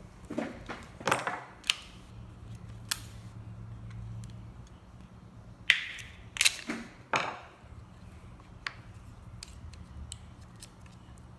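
Sharp plastic clicks and snaps from a flip key fob's case being pried apart with a flat screwdriver, with the loudest snaps coming in a quick cluster about six to seven seconds in. Lighter ticks follow as the small parts are handled.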